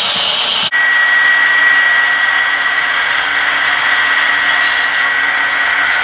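HO scale model diesel locomotives running. A wide rushing sound stops abruptly under a second in and gives way to a steady high-pitched whine over a softer running noise as the second locomotive creeps forward.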